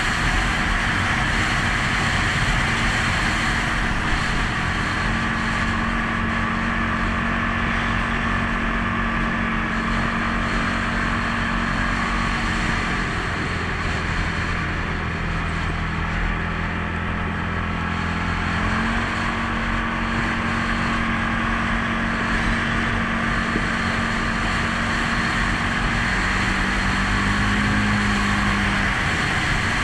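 CFMOTO CForce 500S ATV's single-cylinder engine running while riding. Its pitch holds steady for stretches and changes a few times, dropping about halfway through and rising again a few seconds later, over a constant rushing noise.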